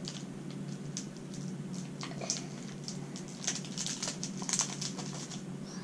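Clear plastic candy bag of sour gummies crinkling as it is handled, in short irregular rustles several times, over a steady low hum.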